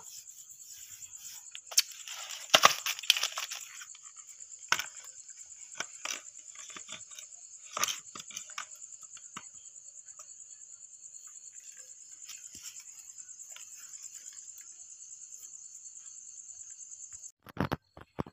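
Night insects trilling in a steady, high-pitched, rapidly pulsing drone, with scattered crunching and rustling noises, loudest about two to three seconds in. The trilling cuts off suddenly near the end, and louder rustling follows.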